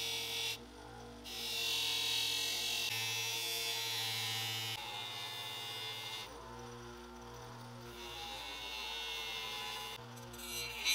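Bench grinder motor humming steadily while the metal winged handle and shank of an old screwdriver are pressed against its grey abrasive wheel, giving a hissing grind in long passes. The grinding is strongest early on, eases off after about five seconds, and picks up again near the end.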